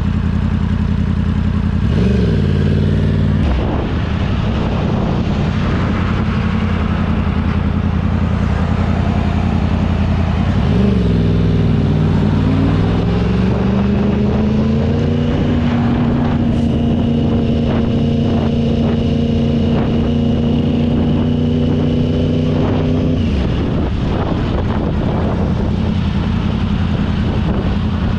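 Motorcycle engine running under way. The revs rise briefly about two seconds in, climb again about eleven seconds in and hold higher for several seconds, then fall back about twenty-three seconds in.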